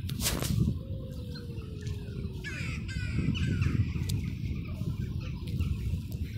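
Cats mating: a long, low, drawn-out yowl that slowly falls in pitch, over a steady low rumble. A few short chirping calls come near the middle.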